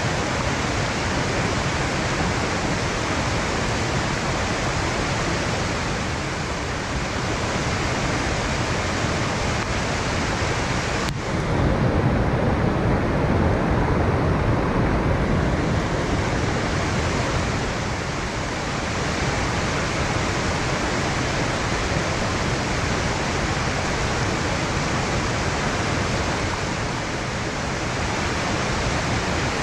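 Steady rush of fast-flowing water in a valley stream. About eleven seconds in there is a single click, and for a few seconds the sound turns fuller and lower before settling back.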